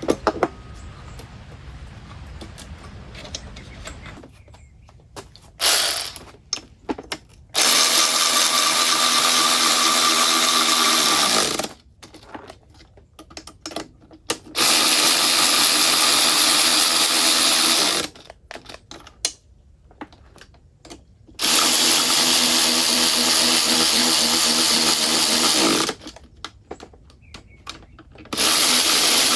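Handheld electric power tool running at high speed in repeated bursts of about four seconds each, with short pauses between, winding down in pitch as it is switched off.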